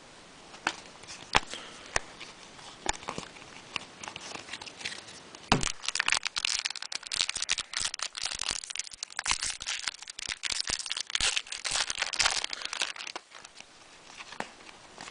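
A trading-card pack wrapper being torn open and crinkled while cards are handled. A few separate clicks first, then dense crinkling from about five seconds in, dying down a couple of seconds before the end.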